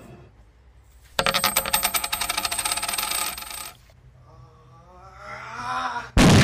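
Coins jingling and clinking rapidly for about two and a half seconds, with bright metallic ringing. After a short pause a rising sound swells and breaks into a sudden loud blast near the end.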